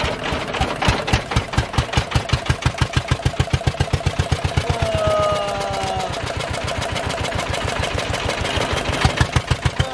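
Engine-driven sugarcane juice crusher running, with a steady knock about six times a second while it presses cane with lemon and mint.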